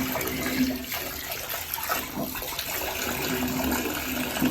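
Tap water running steadily into a bathtub and splashing as a puppy is washed.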